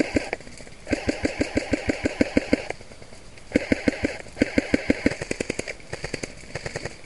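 Airsoft electric rifle firing on full auto in several bursts of one to two seconds, each a fast mechanical rattle of about seven shots a second over a motor whine.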